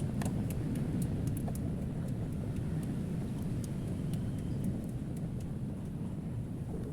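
Steady low background rumble, with faint scattered light clicks of small metal tools on watch movement parts and one sharper click at the very end.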